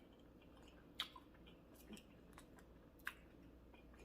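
Faint chewing and mouth sounds of someone eating close to the microphone, with two soft clicks, about a second in and about three seconds in.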